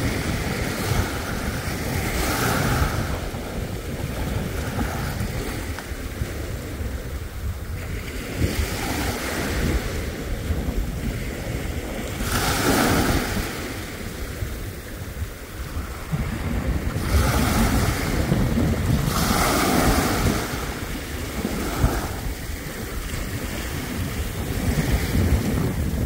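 Small waves washing in over a sandy beach, each wash a soft hiss that swells and fades every few seconds. Wind rumbles on the microphone underneath.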